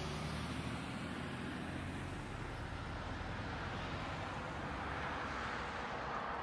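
Steady engine and road noise heard from inside a moving car through a dashcam's microphone, with no impacts.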